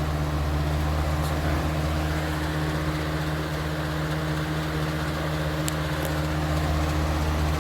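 Electric fans running steadily: a constant low motor hum under an even rush of moving air, with a couple of faint ticks near the end.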